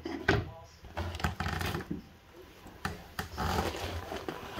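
Kittens eating wet food from a bowl on a wooden floor: irregular chewing and smacking, with sharp clicks and knocks and scratchy rubbing in between.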